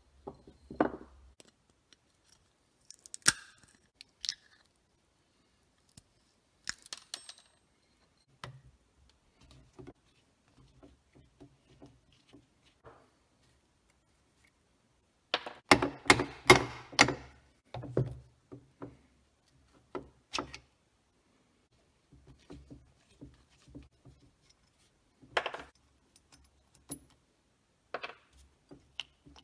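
Scattered metallic clicks and clanks of parts and hand tools being handled while an electric engine governor is taken apart for scrap. A quick run of sharp metal clinks comes about halfway through.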